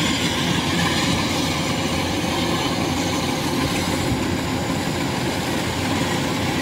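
Kubota DC-105X combine harvester running steadily at close range while cutting ripe rice, its diesel engine and threshing machinery making a continuous even noise.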